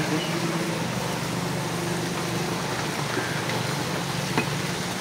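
Steady low hum of an idling engine over an even background hiss, with a couple of faint clicks in the second half.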